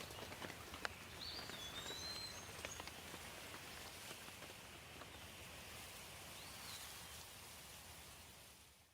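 Light rain falling, with scattered single drops ticking, and a songbird giving a few short chirps about a second in and again near the end. The sound fades out just at the very end.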